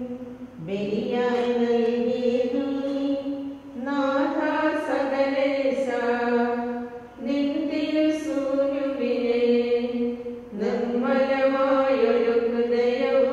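A voice singing a Malayalam liturgical chant in four slow phrases of long held notes, with short breaks between them.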